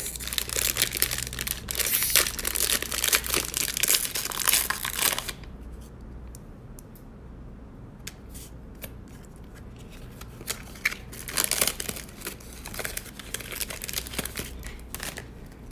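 A trading-card pack's wrapper being torn open and crinkled for about five seconds. Quieter handling with small clicks follows, then more rustling of the wrapper and cards near the end.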